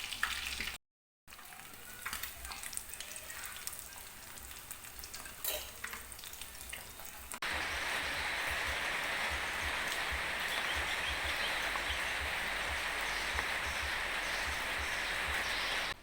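Food frying in hot oil in a pan. At first it crackles with scattered pops; about halfway through it becomes a louder, steady sizzle.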